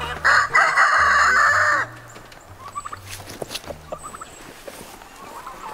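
Hens squawking: a loud, harsh squawk lasting about a second and a half near the start, then scattered softer clucks.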